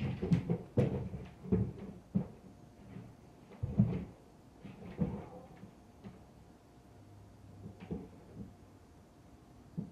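Irregular muffled thuds and bumps from the upstairs neighbours' flat, heard through the ceiling. The thuds come thick and fast over the first two seconds or so, in a few more bunches after that, and then fainter and further apart.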